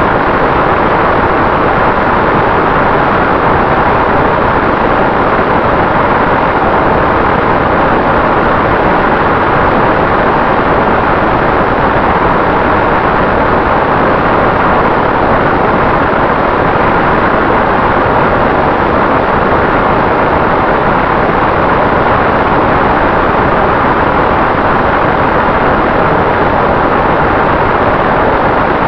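Volantex Ranger FPV plane in cruising flight, heard from its onboard camera: a loud, steady rush of wind and pusher-propeller noise with a faint, even electric-motor whine underneath.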